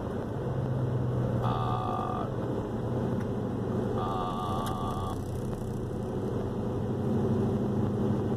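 Steady engine and road noise inside the cab of a second-generation Dodge Ram pickup under way. Two brief warbling tones, each about a second long, come near the start and about halfway through.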